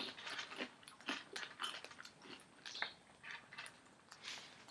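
Faint chewing and crunching of small hard-coated candies, mixed with scattered light clicks of wooden chopsticks picking at the candies on a wooden table.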